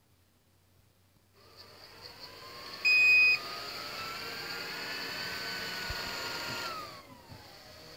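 Ecovacs Deebot M80 Pro robot vacuum's motor spinning up with a rising whine, a short loud beep about three seconds in, then running steadily. Near the end the whine falls away as the motor winds down.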